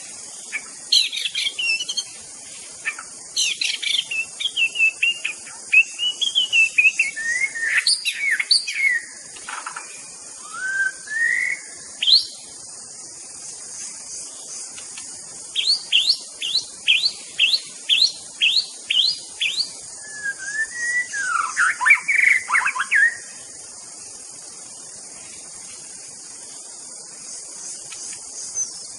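White-rumped shama (murai batu) singing: varied whistled and warbled phrases, then a run of about ten quick rising notes, two or three a second, and another burst of song before it falls quiet near the end. A steady high-pitched hiss sits underneath throughout.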